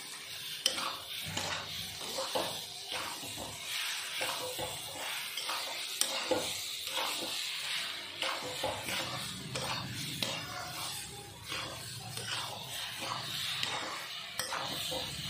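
A utensil stirring a thick semolina and khoa mixture in a kadhai, scraping and knocking against the pan in short irregular strokes, over a steady faint sizzle.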